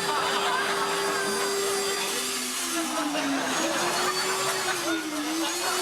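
Industrial vacuum cleaner motor running continuously with a rushing of air, rigged to blow out instead of sucking. Its whine dips in pitch briefly twice.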